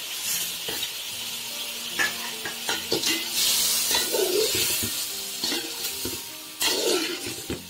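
Cauliflower florets and fried potato pieces being stirred into a sizzling spice masala in a metal pan with a metal spoon: a steady sizzle with irregular scrapes and knocks of the spoon against the pan. The sizzle swells louder about halfway through.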